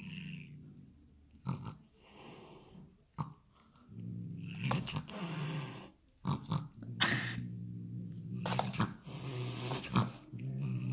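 A cat making odd, breathy noises in a run of short irregular bursts, over a low steady rumble.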